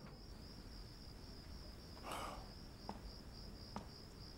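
Crickets chirring: a faint, steady high-pitched trill with a slight pulse, with a brief soft rustle about two seconds in.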